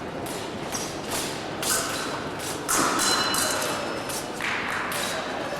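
Repeated thuds and taps of fencers' feet on the fencing piste, over the hum of a large sports hall with faint voices.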